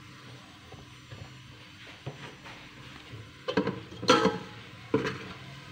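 A slotted steel spatula scraping and clanking against a steel pot while stirring onions frying in oil as they brown, over a faint sizzle. The clatter comes in two bunches, about three and a half seconds in and again near the end.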